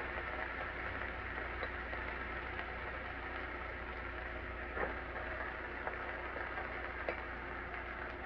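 Curry-seasoned chicken pieces sizzling in a hot pot: a steady hiss with a couple of small crackles, over a low hum.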